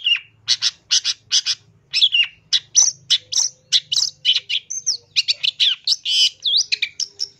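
Long-tailed shrike (pentet) singing a fast, continuous string of short harsh chattering notes, several a second, mixed with brief slurred whistles that rise and fall.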